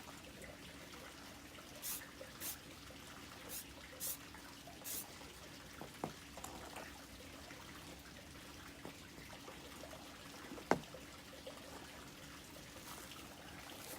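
Aerosol spray paint can sprayed in short hissing bursts, five in the first five seconds and a faint one near the end. Two sharp knocks fall in the quiet middle, the louder one about ten and a half seconds in.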